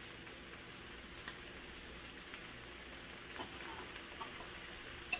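Food frying in oil in pans on a stove: a faint, steady sizzle and crackle, with a few light clicks, the clearest about a second in.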